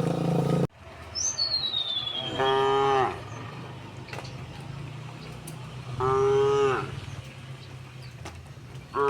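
Cows mooing: three short, fairly high-pitched moos of about half a second each, spaced a few seconds apart. A high falling whistle comes just before the first moo, and a steady low sound cuts off abruptly less than a second in.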